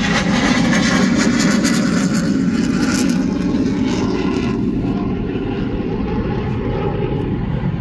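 Military jet aircraft engines running at high power close by, heard from inside a car: a loud rushing noise with crackle, loudest in the first three seconds and then slowly fading.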